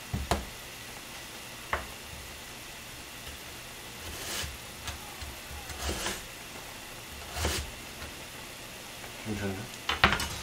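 Chef's knife slicing through a Korean radish onto a plastic cutting board: about six separate knocks of the blade meeting the board, spaced a second or two apart.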